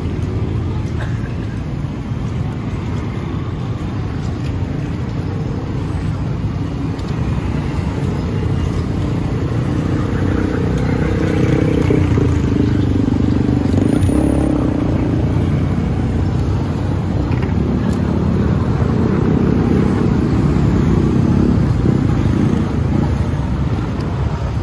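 Road traffic going by close at hand, cars and motorcycles, with engine noise swelling louder from about a third of the way in.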